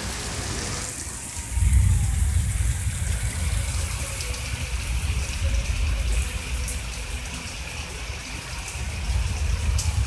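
Rain falling, with a low buffeting rumble of wind on the microphone that starts about one and a half seconds in.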